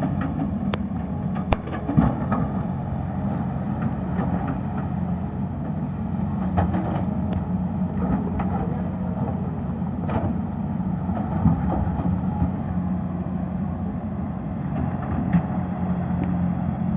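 Tata Hitachi excavator's diesel engine running steadily, with a few sharp clicks and knocks scattered through it.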